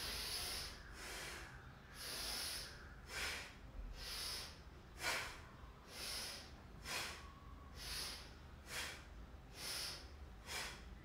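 A woman breathing audibly in and out in a steady rhythm, about one breath sound a second, timed to yoga side bends.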